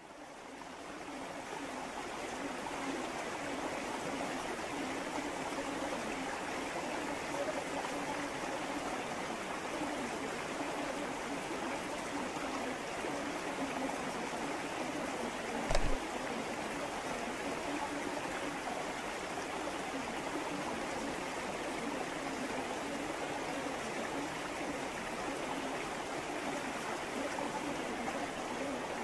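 River water rushing and babbling steadily, fading in over the first couple of seconds. A single short knock sounds about 16 seconds in.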